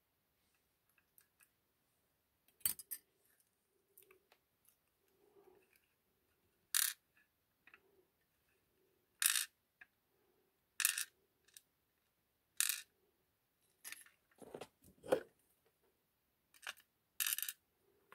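Small metal lock parts and tools clinking and tapping on the work surface while an ASSA 6000 lock cylinder is taken apart: a string of sharp, bright metallic clicks spaced a second or two apart, with a couple of duller knocks near the end.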